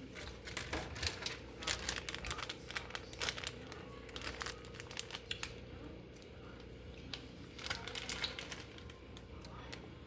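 Irregular crinkling and crackling, made of quick clusters of sharp clicks that thin out midway and pick up again near the end.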